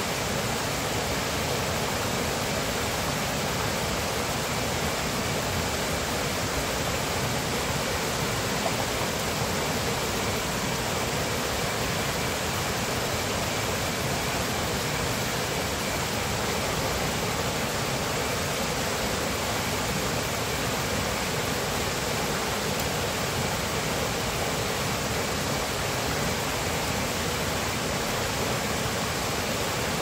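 Shallow rocky stream rushing over boulders and down a small cascade: a steady, even rush of running water.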